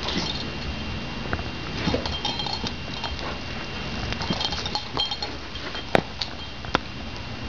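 Airedale puppy snapping at soap bubbles: scattered short clicks and small squeaky sounds, with one sharp click about six seconds in.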